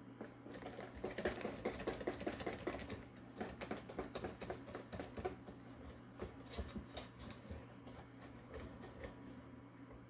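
Yorkshire pudding batter being beaten in a bowl: a fast, uneven run of small clicks and taps as the utensil hits the bowl, easing off a little in the second half.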